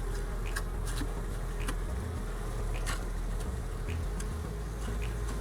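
Honeybees buzzing steadily around an open hive being fed sugar, with scattered light clicks and a low steady rumble underneath.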